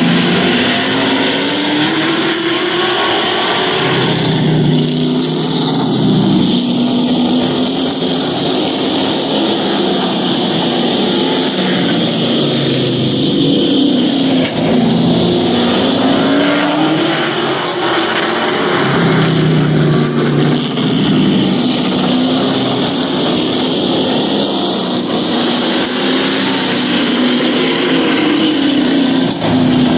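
Pro Truck race trucks' engines running at racing speed, several at once. Their pitch climbs as they accelerate and drops as they back off, in repeated cycles a few seconds apart, over a steady wash of engine and tyre noise.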